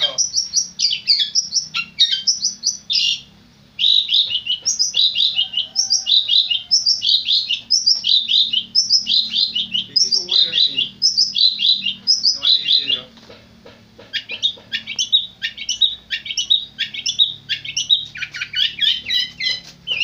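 Caged long-tailed shrike (cendet) singing a rapid chattering song of high, scratchy notes in quick repeated phrases, pausing briefly about three and a half seconds in and again about thirteen seconds in.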